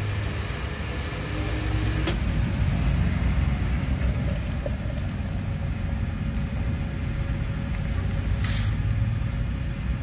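Diesel being pumped through a fuel-station nozzle into a backhoe loader's tank, with a steady low hum under the flow and the fuel foaming up near the top of the filler neck. A sharp click about two seconds in and a short hiss near the end.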